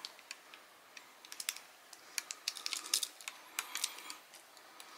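Light, irregular clicks and taps of a collectible figure's plastic and metal parts being handled and pushed into place, thickest in the middle seconds.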